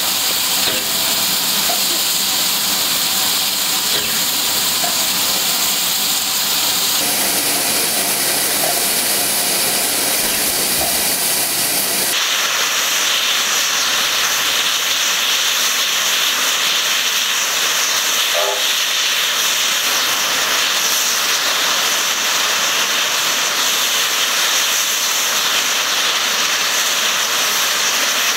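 Steam locomotive No. 6046, a USATC S160 2-8-0, standing and blowing off steam: a loud, steady hiss that grows brighter and sharper about twelve seconds in.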